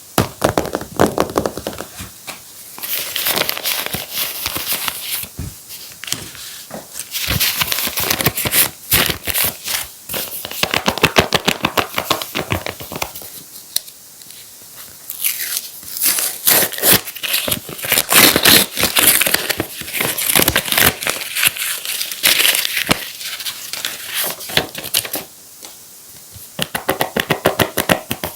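Paper being handled, crinkled and torn, in bouts of crackly rustling with short pauses between them.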